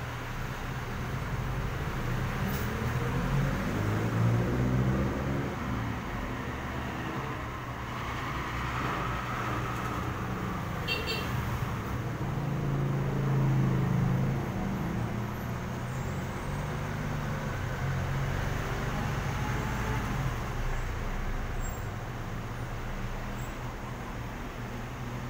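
Street traffic: the engines of passing vehicles hum and swell as each goes by, loudest about four and thirteen seconds in. A short high beeping comes about eleven seconds in.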